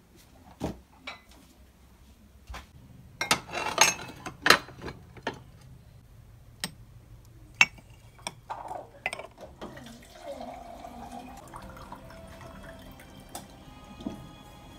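Glass cups clinking together as they are handled, a cluster of sharp clinks in the first half. Then water runs from the tap of a water-filter tank into a plastic bottle, filling it.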